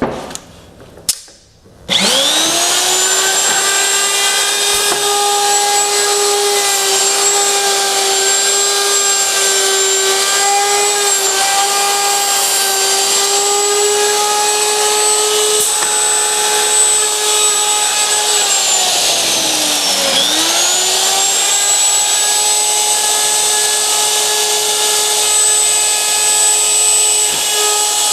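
Hinge-mortising router on a Norfield 350H hinge routing station, switched on with a click and spinning up about two seconds in, then running with a steady high whine. Near the end its pitch sags for about two seconds and quickly climbs back to full speed.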